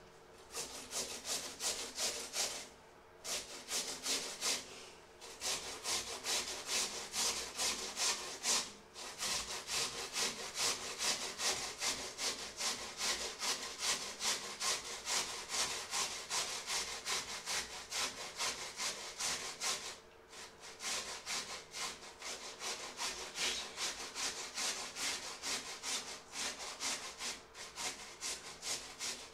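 Peeled raw potato grated on a hand-held metal grater over a metal bowl: quick rasping strokes, about three a second, with a few short breaks.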